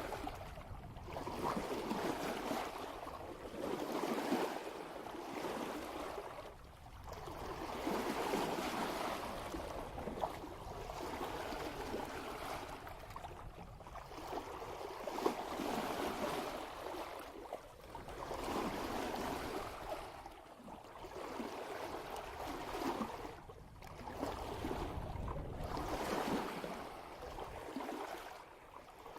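Sea water rushing and splashing at the bow of a sailboat moving at about 3 knots, swelling and easing every two to three seconds as the hull rides the swell.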